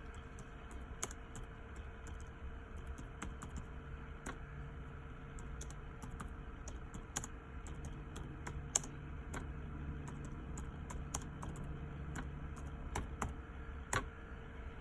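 Typing on a computer keyboard: irregular, unevenly spaced keystrokes over a steady faint hum.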